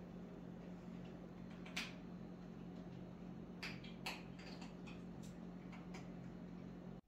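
Steady low hum of a refrigerator, with scattered light clicks and taps, the loudest about two seconds in and again about four seconds in.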